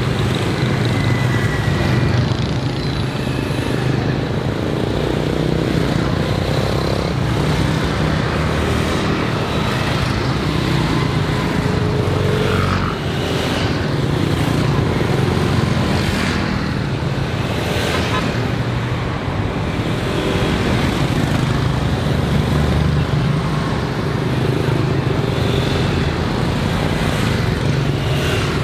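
Busy street traffic, mostly motorbikes and scooters with a few cars, passing close by: a steady, dense mix of small engines running and tyre noise.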